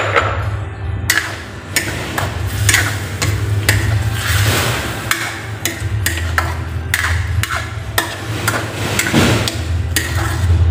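Metal spatula knocking and scraping against a stainless-steel wok as chicken pieces are stirred, with many irregular sharp clanks.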